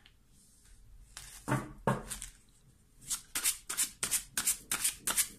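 A deck of Lenormand cards being shuffled by hand: two knocks about a second and a half in, then a quick, even run of crisp card strokes, about three a second.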